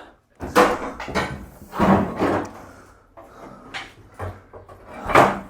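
Irregular clunks and scraping from a part being handled and worked loose. The loudest knocks come about half a second in, twice around two seconds in, and again about five seconds in.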